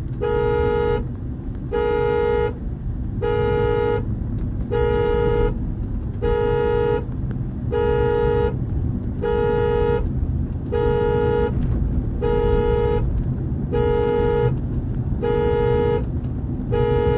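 Honda Ridgeline's horn honking over and over in an even pulse, about one honk every second and a half, each just under a second long: the truck's malfunctioning alarm system is sounding it, set off when the truck was put in park. A steady low rumble of the running truck lies underneath.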